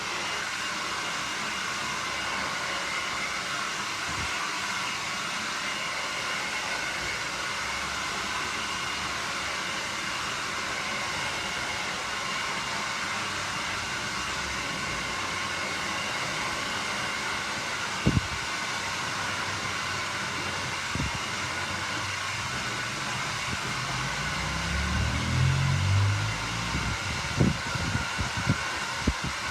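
Hand-held hair dryer blowing steadily while a customer's hair is dried. There is a sharp click about two-thirds of the way through and a few knocks near the end.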